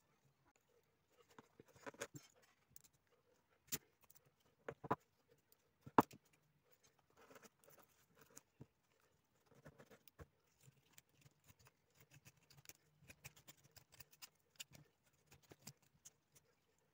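Knife blade shaving wood off a pencil: faint, irregular light scraping and small clicks, with a few sharper taps in the first half.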